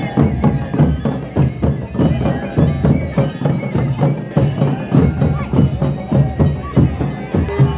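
Traditional folk-style music with a fast, steady percussion beat.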